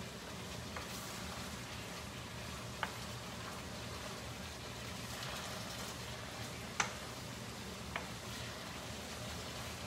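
Steak strips and stir-fry vegetables in soy sauce sizzling steadily in a skillet on high heat, while a spoon stirs them, with a few sharp taps of the spoon against the pan.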